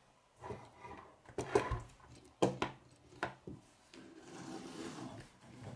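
Plastic K'nex pieces clicking and knocking as the model is handled on a wooden table, with a few sharp knocks in the first three seconds, then a softer rubbing near the end.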